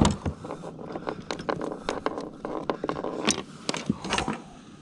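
Scraping, rustling and light clicking from handling a landing net and a largemouth bass, lifted out of the net by its lip.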